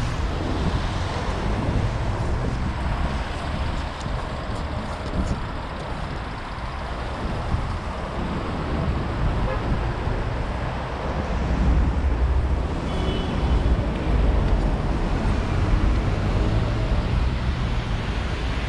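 City street traffic: cars passing with a steady low rumble that swells and eases. A brief high-pitched tone sounds about two-thirds of the way through.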